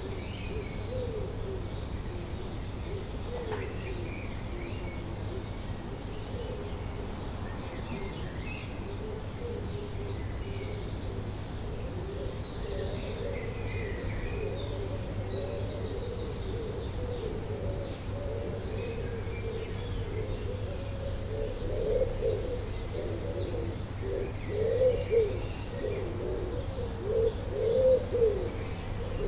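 Dawn chorus of wild birds: high trills and chirps from songbirds over a dense run of low-pitched calls that swell and grow louder in the last several seconds, with a steady low hum underneath.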